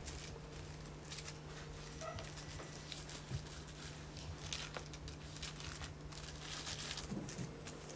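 Plastic bags rustling and crinkling on and off as they are handled, over a steady low hum.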